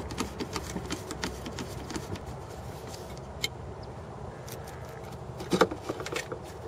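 Small ratchet clicking in quick strokes, about four or five a second, as the screws holding the mass airflow sensor to the intake tube are backed out. This is followed by a few scattered clicks and a louder short clatter of metal and plastic near the end.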